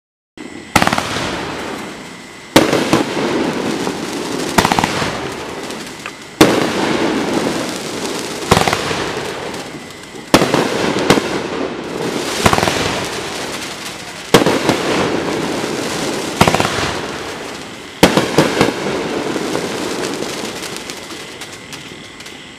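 A 25-shot, 500-gram consumer fireworks cake firing, about one loud report every two seconds. Each report is followed by a crackling, fizzing wash that fades away before the next one.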